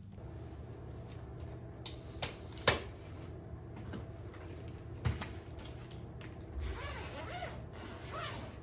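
A few sharp knocks and clicks over a low steady hum, with faint creaking near the end.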